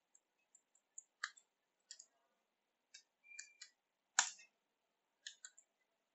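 Faint keystrokes on a computer keyboard: scattered single clicks at an uneven pace, the loudest about four seconds in.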